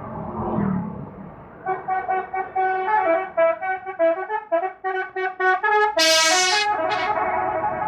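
Bus telolet horn, a multi-tone musical air horn, playing a quick tune of short honked notes at changing pitches, then a louder, brighter blast and a held tone near the end. Engine and traffic rumble comes before the tune starts.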